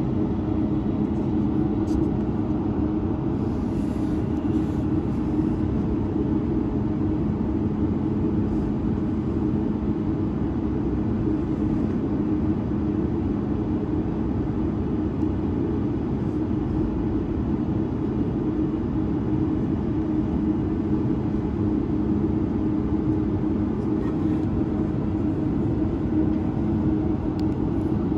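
Cabin noise of a Boeing 737-9 MAX with its CFM LEAP-1B engines running: a steady low hum over a constant rumble, heard from inside the cabin.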